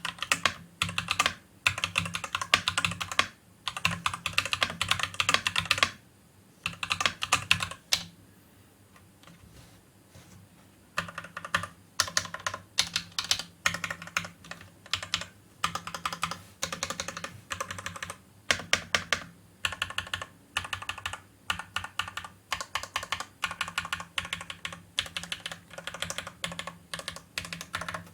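Typing on the Amazon Basics Pro 65% wireless mechanical keyboard with its stock red (linear) switches: fast flurries of key clicks, a pause of a few seconds, then steady continuous typing.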